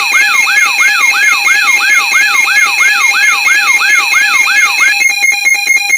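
Electronic siren-like alarm tone, sweeping in pitch about three times a second over steady high tones, switching about five seconds in to a rapid pulsing of about ten beats a second.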